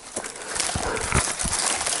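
Footsteps crunching and rustling through dry leaves and brush, with a few dull footfall thuds about a second in.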